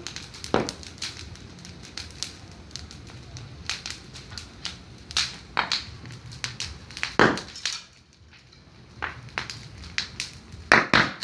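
Bonfire of dry branches crackling with many irregular sharp pops, with a few louder snaps about seven seconds in and again near the end. The onlookers put those bigger bangs down to the plaster on a wall nearby bursting in the heat.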